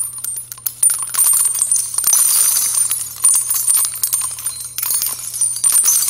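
Jingling, clinking sound effect: a dense run of rapid metallic ticks with a bright high shimmer over a steady low hum, accompanying an animated title card.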